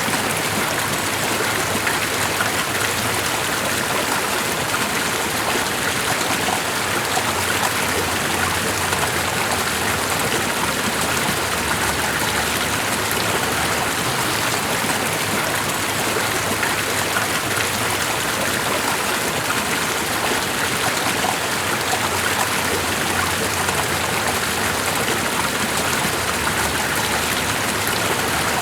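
Continuous rush of water, even and unbroken, with no single splashes or drops standing out.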